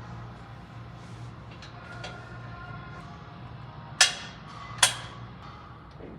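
Two sharp knocks, a little under a second apart, over a steady low hum.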